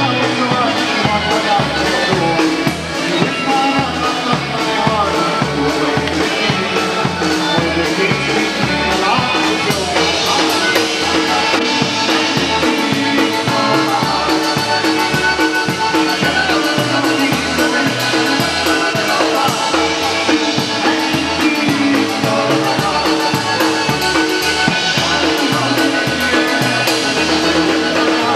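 Live polka band playing a polka, with a drum kit keeping a steady, brisk beat of bass drum and cymbals under the band.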